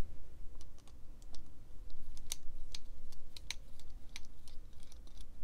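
Irregular small metallic clicks and taps as a precision screwdriver works the screws out of a Demko AD20.5 folding knife's handle.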